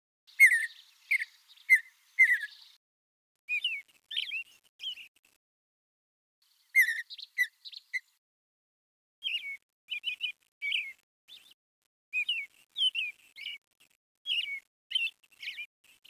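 A bird chirping: groups of short, quick high notes with brief pauses between them.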